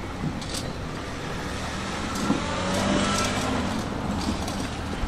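Tobu Tojo Line electric train running, a steady rumble that swells slightly about two seconds in, with a faint motor whine sliding in pitch.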